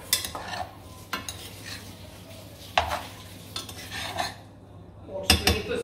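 Utensils clinking and knocking against dishes or a pot, a run of separate sharp clinks with a louder pair near the end.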